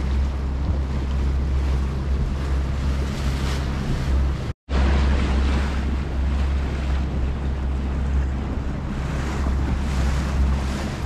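Boat's engine running steadily at trolling speed, with wind buffeting the microphone and water rushing past the hull. The sound drops out for an instant a little before halfway.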